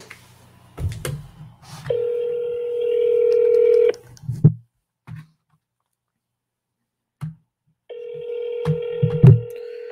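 Telephone ringback tone heard through a phone on speaker: two rings of about two seconds each, four seconds apart, while the call waits to be answered. A few short low thumps come near the rings, the loudest shortly before the end.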